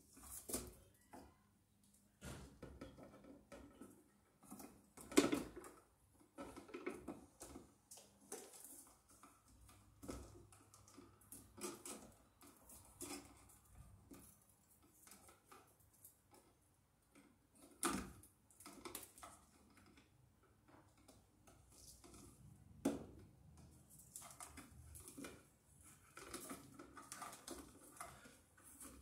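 Quiet, scattered clicks, rustles and small metallic clinks of electrical wires and a hand tool being worked at an electrical box while ground wires are joined with a crimp sleeve, with a few louder sharp clicks spread through.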